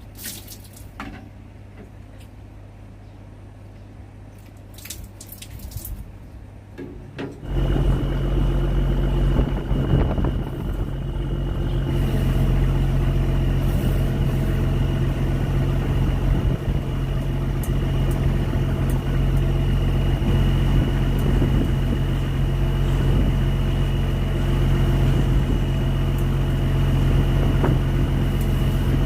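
A few clicks over a low hum, then about seven seconds in a boat engine comes on loud and runs steadily, with a low drone and a thin high whine over it.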